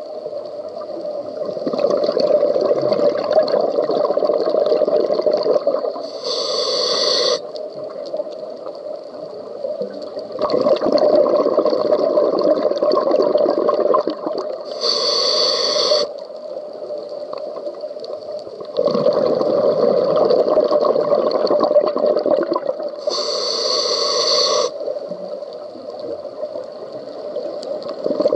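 Scuba diver breathing through a regulator underwater: several seconds of bubbling exhaled air, then a short hiss of inhalation through the regulator. Three breaths, about eight seconds apart.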